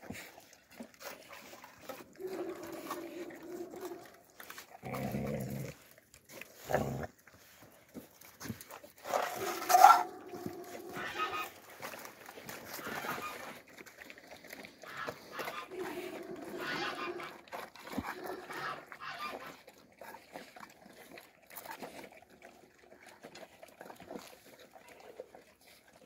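Central Asian Shepherd (alabai) puppies at their food bowls, giving several short pitched dog vocalizations. The loudest call comes about ten seconds in, with a brief rise in pitch.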